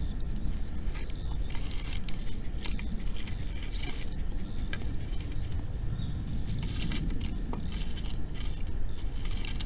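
Wood bonfire crackling, with irregular small pops and snaps over a steady low rumble.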